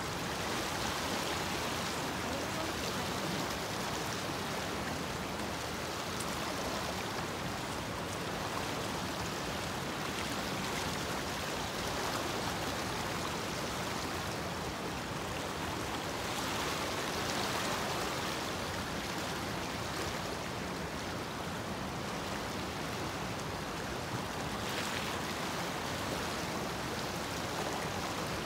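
Shallow stream flowing steadily, a constant rush of moving water.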